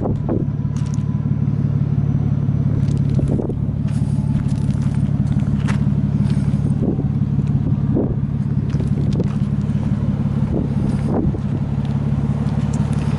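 Nissan Skyline GTS-t Type M's RB20DET turbocharged inline-six idling steadily through an aftermarket muffler, with a few short crunches on gravel on top.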